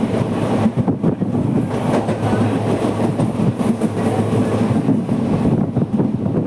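Passenger train coaches running at speed, heard on board: a steady rumble of wheels on rail with the clickety-clack of rail joints.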